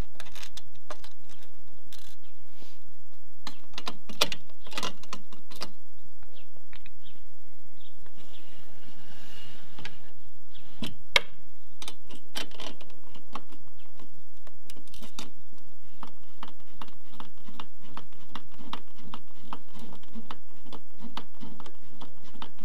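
Irregular clicks and small metallic rattles of hand tools on hardware: a screwdriver and wrench tightening a bolt and nylon lock nut on a kayak rudder bracket.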